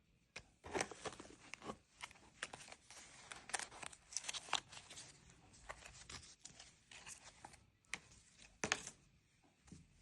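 Gift packaging being torn open and crinkled by hand: irregular tearing and crackling rustles, the loudest tear near the end.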